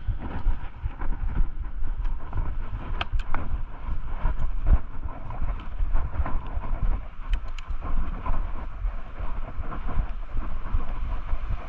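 Rocky Mountain Instinct mountain bike being ridden over rough cross-country trail, with wind buffeting the camera microphone and the bike rattling and clicking over the ground. A few sharper clicks stand out, about three seconds in and again past seven.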